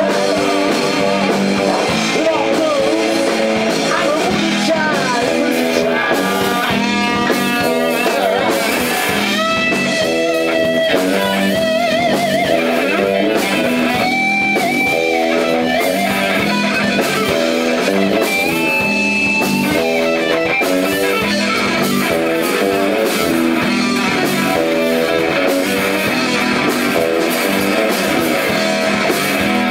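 Live rock band playing, led by an electric guitar. The guitar plays a lead line over bass and drums, with several long held notes that waver in pitch partway through.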